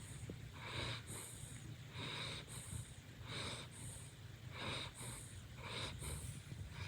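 West Highland white terrier puppy snoring and snuffling in its sleep: a steady rhythm of short, hissy breaths in and out, roughly one breath a second.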